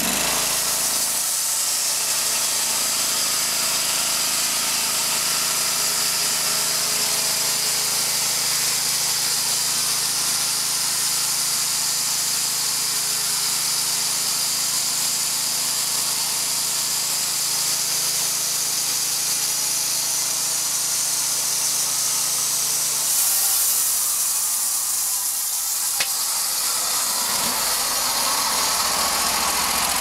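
Gasoline engine of a portable band sawmill running steadily under load while the band blade cuts through a log, with a hiss over the engine note. A little over three-quarters of the way through, the engine note shifts and its pitch slides for a few seconds, with a short click, then settles again.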